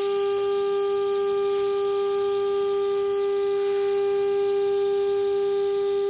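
MultiCam 5000 Series CNC router spindle running at a steady speed: a constant high whine with a hiss of machining noise above it.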